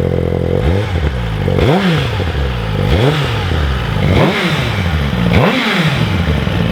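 Suzuki GSX-R1000R's inline-four engine on its stock exhaust, pretty quiet, blipped five times from idle, each rev climbing and falling straight back, then settling back to idle near the end.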